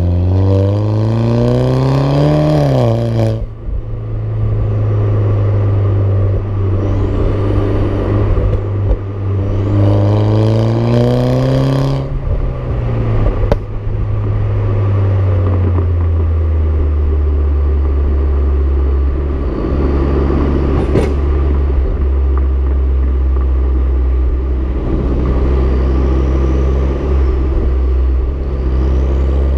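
BMW F20 116i running through a Supersprint exhaust system, heard close to the tailpipe: the engine note climbs under acceleration and drops sharply at a gear change about three seconds in. It climbs again for a few seconds near the middle, then falls back and settles into a steady drone over road noise.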